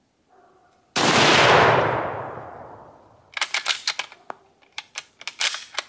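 A single shot from a Type 99 Arisaka bolt-action rifle in 7.7 mm Japanese about a second in, its report dying away over about two seconds. It is followed by a quick run of sharp metallic clacks as the bolt is worked to eject the case and chamber the next round.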